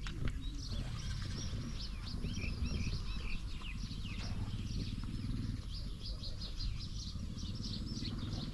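Many small birds chirping quickly and irregularly together, over a steady low background rumble.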